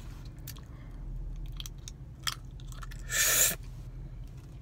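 Clear plastic Invisalign aligner trays being popped off the teeth: a few small wet clicks from the mouth, then a short breathy rush about three seconds in.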